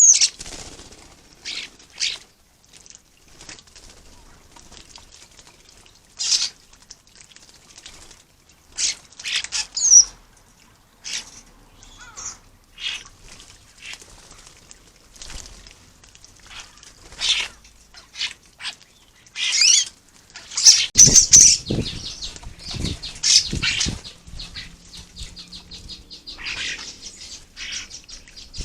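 Common starlings calling in short, separate whistles and harsh calls, some sliding in pitch. About two-thirds of the way through comes a loud flurry of wing flapping as the birds squabble and bathe.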